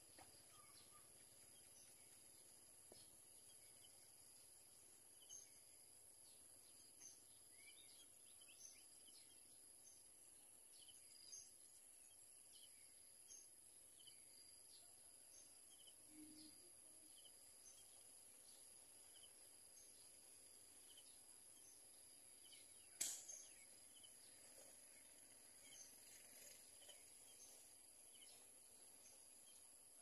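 Near silence: a faint steady high hiss, with faint short high chirps dotted through it and one sharp click a little after the middle.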